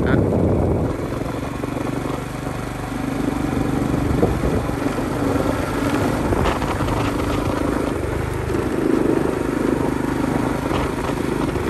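A vehicle's engine running steadily while driving along a road, with road noise.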